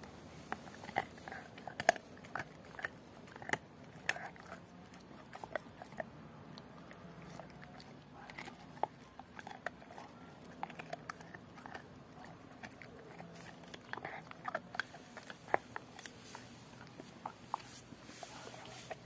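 Rottweiler gnawing a pork bone: irregular sharp cracks and crunches of teeth on bone, busiest in the first few seconds and again near the end.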